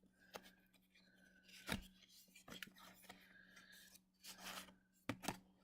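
Faint scraping and rubbing of baseball trading cards being slid off a stack and flipped through, with a few soft ticks as card edges catch.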